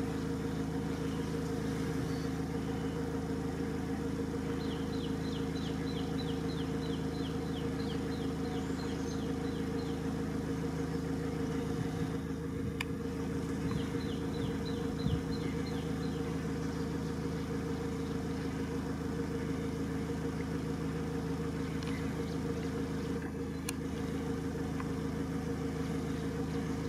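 Vehicle engine idling steadily, a low even hum. Twice, a rapid run of high chirps, about four a second, sounds over it.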